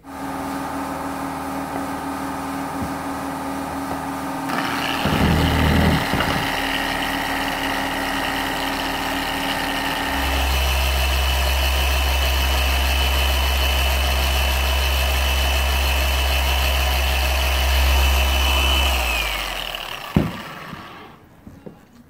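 Porter-Cable high-speed electric buffer running steadily while a foam pad polishes a wooden shift-knob ball. Its sound shifts a few seconds in and again about halfway, when a deep hum sets in. Near the end it winds down with a falling whine, followed by a sharp knock.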